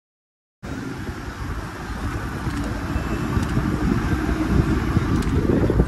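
Begins with a moment of dead silence, then the engine and road noise of a moving bus: a steady, noisy rumble that grows louder over the last few seconds.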